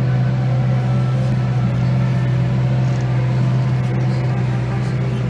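New Holland T6 165 tractor engine running at a steady speed, heard from inside the cab as an even, deep drone.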